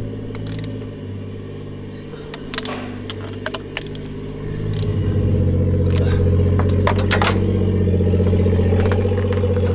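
Car engine running noisily through a loud exhaust, getting louder about four and a half seconds in and then holding steady, with a few sharp clicks over it.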